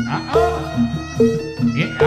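Live jaranan dance accompaniment music: a melody of held notes over a quick, even beat of about two to three strokes a second.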